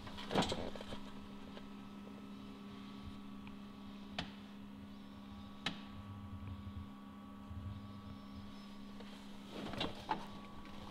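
Steady electric hum from a switched-on Linde E16L-02 electric forklift, with a few sharp clicks at intervals.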